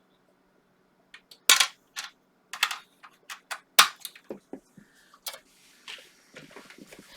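A run of sharp clicks and knocks, the loudest about one and a half and four seconds in, from a CMOS coin-cell battery being pushed into its holder on an IBM PC 330 motherboard. Softer handling rustle and light clicks follow.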